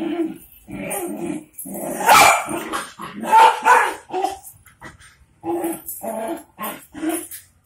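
Two dogs, a small puppy and a larger dog, barking and yipping as they tussle: a string of short calls, one or two a second, loudest about two and three and a half seconds in.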